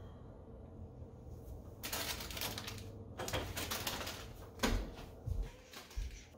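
Rummaging in a pantry: a plastic snack bag of Cheetos rustling and crinkling in two bursts, then three low thumps spaced less than a second apart.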